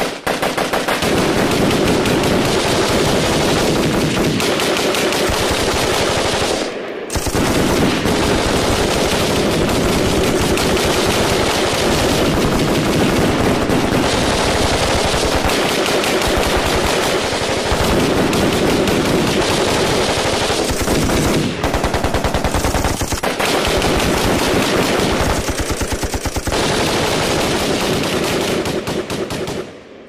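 Layered sound-effect mix of about ten machine guns firing at once: dense, overlapping rapid automatic fire, with a brief lull about seven seconds in.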